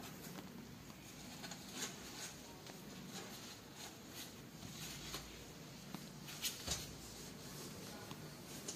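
Faint rustling and soft small clicks from a heap of kittens shifting and nursing against their mother on cloth, with two slightly louder clicks about six and a half seconds in.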